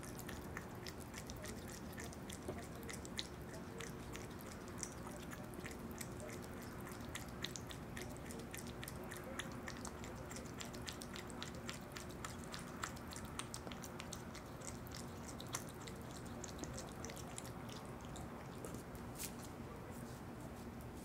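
Opossum eating yogurt: many small wet mouth clicks of chewing, irregular and several a second, over a faint steady hum.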